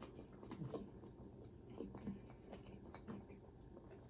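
A person chewing fried chicken close to the microphone: faint, irregular mouth clicks and smacks.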